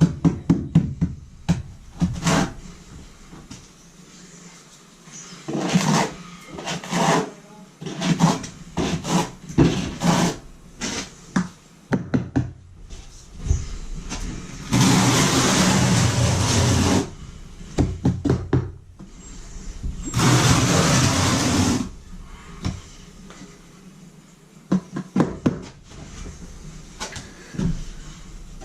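Knocks and taps of tools and materials during floor work with thinset mortar, with two steady runs of a motor of about two seconds each, one about halfway through and another a few seconds later.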